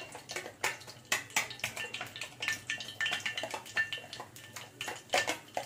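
A utensil beating raw egg mixed with onion and herbs in a plastic bowl: quick, irregular clicks and taps against the bowl, several a second.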